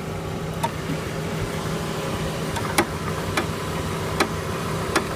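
Chevy Aveo front sway bar link cracking sharply about five times as the steering is turned, the loudest crack a little under three seconds in, over the steady hum of the idling engine. The cracks come from the worn ball-joint end of the front driver's-side link.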